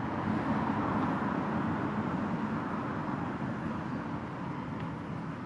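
Steady street noise of distant road traffic, slowly fading.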